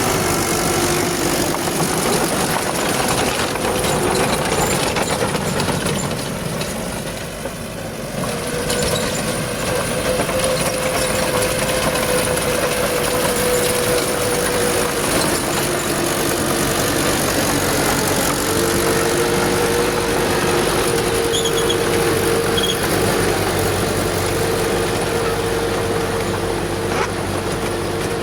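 Old Furukawa bulldozer's diesel engine running steadily as it works, its note dropping briefly about seven seconds in and shifting pitch a few times afterwards.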